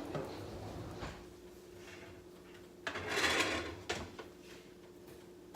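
Kitchen handling noises: a couple of knocks, then about three seconds in a scraping slide lasting about a second, like a pan or rack being drawn out of the toaster oven, over a steady low hum.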